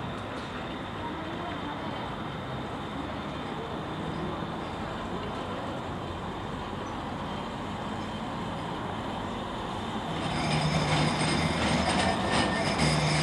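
Manchester Metrolink M5000 electric tram approaching on a curved track: a steady rumble that grows louder about ten seconds in, with a low hum and a high squeal from the wheels on the curve.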